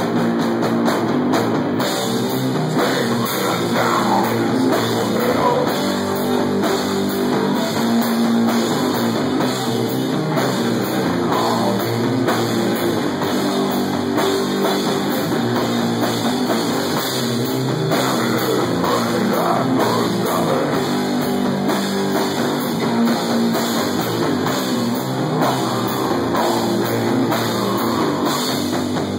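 Stoner metal band playing live, with guitar and drum kit at a steady high level.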